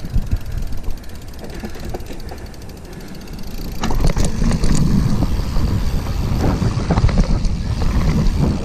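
Mountain bike descending a dirt forest trail: wind buffeting the microphone over a low rumble of tyres on dirt, with sharp rattles and knocks from the bike over rough ground. It gets quieter for a couple of seconds, then louder again about three and a half seconds in, with a burst of clicks and knocks.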